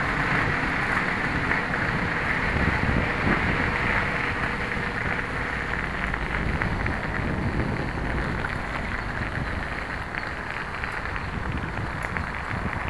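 Steady wind noise buffeting the microphone of a camera riding on a moving bicycle, mixed with the rolling of the bike's tyres on the towpath.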